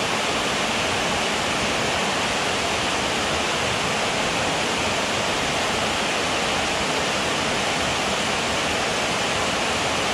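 Steady, loud rush of a swollen, muddy stream pouring over a small weir into a churning pool; the water is running high and fast.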